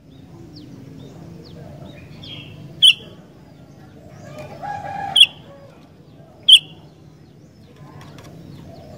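Sooty-headed bulbul (kutilang) giving short, sharp, loud call notes, three of them a second or more apart. A lower, drawn-out call rises and stops shortly before the second note.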